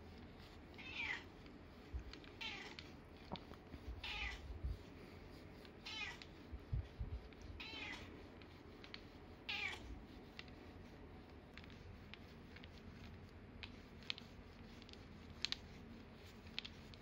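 A 14-year-old cat giving a run of short meows, about six, one every one and a half to two seconds, which stop about ten seconds in. Faint low bumps and a few light clicks come from the massage roller being worked over her back.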